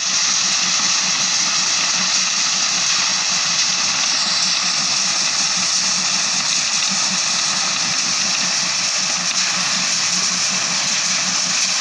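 Small aggregate crushing plant running: crushed stone rattles and tumbles through the rotating drum screen that sorts it by size, a steady, loud rushing noise. A low, steady machine hum lies under it.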